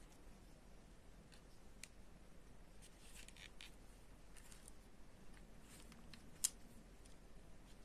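Faint handling sounds of a crocheted toy and yarn being turned and pinned: soft scattered rustles and light ticks, with one sharp click about six and a half seconds in.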